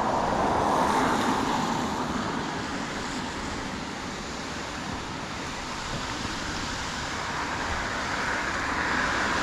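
Road traffic passing: a car goes by about a second in and another approaches near the end, its tyre noise swelling.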